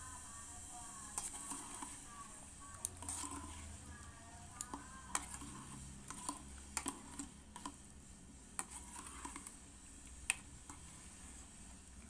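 Metal wire-mesh strainer tapping and scraping against the rim of a pot as squid rings are tipped into the hot broth: a run of sharp clicks and knocks, loudest about ten seconds in.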